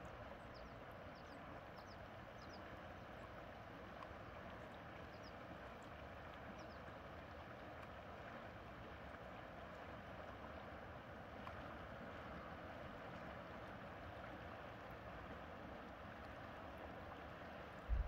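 Salmon River flowing steadily past rocks along the bank: an even, faint rushing babble of moving water. A short low thump comes right at the very end.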